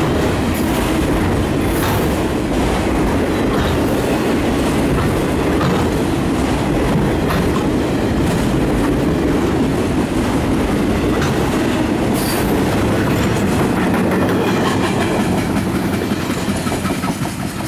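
Freight train of autorack and empty intermodal cars rolling past close by: a steady rumble of steel wheels on rail with clicking over rail joints and a couple of brief high-pitched wheel squeals. The noise eases near the end as the last cars go by.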